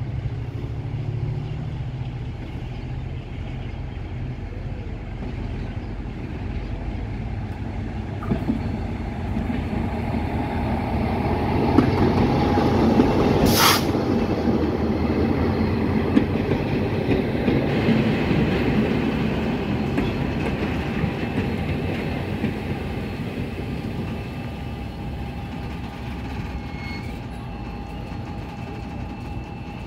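EMD GT22CW diesel locomotive's 12-cylinder two-stroke engine drawing near and passing slowly, growing louder to a peak about halfway through with a brief burst of hiss. Then its passenger coaches roll by with wheels clattering and a thin squeal as the train slows into the station.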